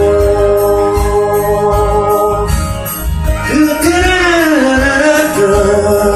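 Pop-rock song outro: a voice sings a wordless 'lan-la-la' refrain in long held notes, sliding in pitch about halfway through, over band backing with jingle bells.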